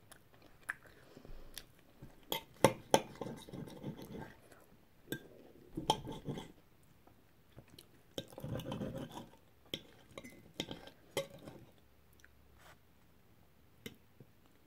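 Knife and fork clinking and scraping on a ceramic plate while cutting a sausage, a few sharp clinks standing out, with chewing in between.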